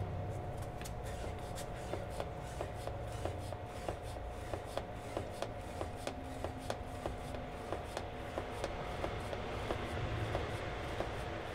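Gasoline being siphoned from a car's fuel tank into a plastic jug through a hand siphon pump and hose: fuel running into the jug with a quick, regular clicking, about two to three clicks a second.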